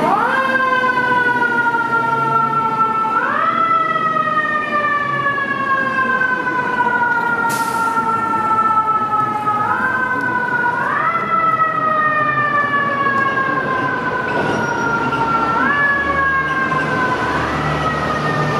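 Siren of a 2009 Seagrave Marauder II fire engine responding to a call, sounding in repeated quick upward sweeps, each sliding slowly back down in pitch, about every three to six seconds.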